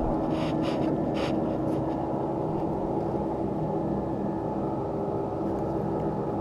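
Small boat motor giving a steady low hum with a few held tones. Near the start come three or four brief scratchy rustles.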